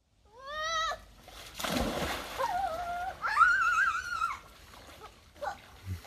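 Several short, high-pitched wordless squealing cries that rise and waver, with a splash of water about two seconds in.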